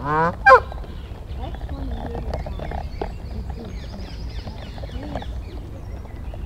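A short, loud call from domestic fowl right at the start, then faint distant voices over a low steady rumble.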